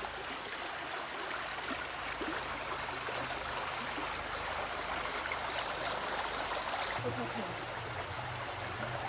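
A forest stream flowing, a steady even hiss of running water.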